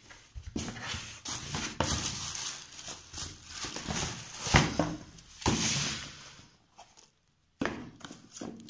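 Tissue paper rustling and crinkling as a sneaker is unwrapped and lifted out of a cardboard shoebox, with a few sharp knocks among the handling, the loudest about four and a half seconds in.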